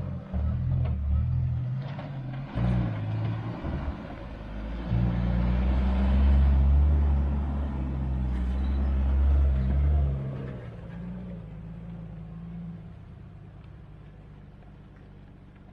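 Motor vehicle engine running with a low rumble, loudest for a few seconds in the middle, then dropping away about ten seconds in to a fainter rumble that fades.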